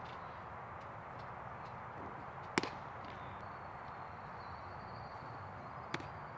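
Ballpark background noise with two sharp cracks. The louder crack comes about two and a half seconds in; the smaller one near the end is the pitched baseball popping into the catcher's mitt. A faint, steady high tone runs through the middle.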